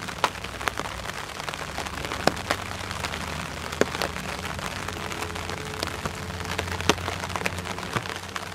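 Light rain pattering, with scattered drops ticking close by, over a low steady rumble.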